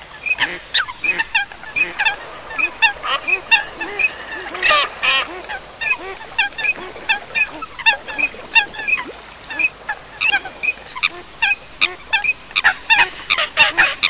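Mixed flock of common coots and teal and pintail ducks calling: a dense chorus of many short overlapping calls, with a few longer calls about five seconds in.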